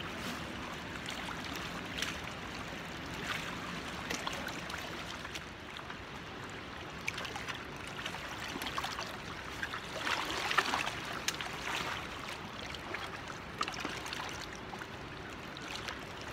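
Steady rush of river water flowing and lapping along a rocky bank, with a louder stretch about ten seconds in.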